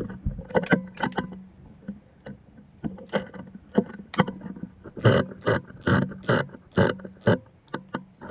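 A single shot from a regulated .177 (4.5 mm) PCP air rifle firing a slug at the start, with a short deep thump and a few sharp clicks just after. Later comes a run of about six evenly spaced knocks, roughly two a second.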